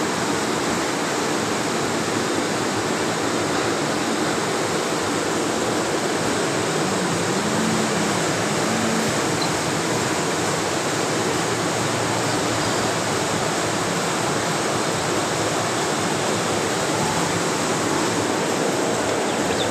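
Steady, even rushing noise that does not change, with no distinct peeping standing out.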